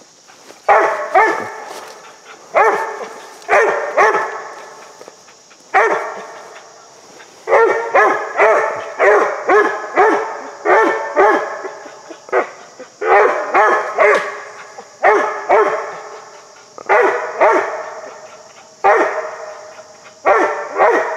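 Young treeing dog barking treed at the base of a tree: a long string of short, loud barks, often about two a second in runs with brief pauses between. The dog is signalling game it believes is up the tree.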